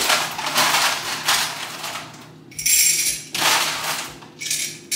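Kitchenware being handled: a run of short rattling, clinking bursts, about six in five seconds.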